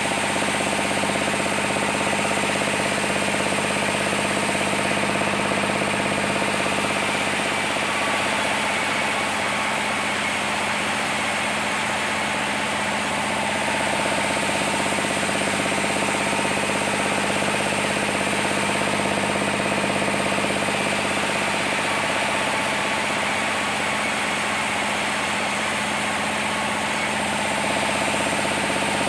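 Sawmill machinery running steadily, a constant engine-like drone whose pitch and level hardly change.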